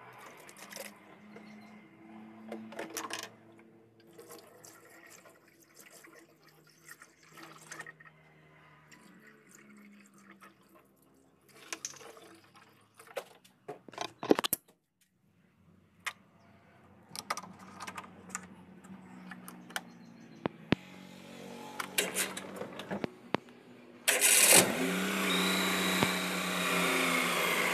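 Faint clicks and handling noises, then near the end the Maruti Omni's three-cylinder petrol engine is started: it catches suddenly and settles into a steady run, started after the coolant refill to check for leaks.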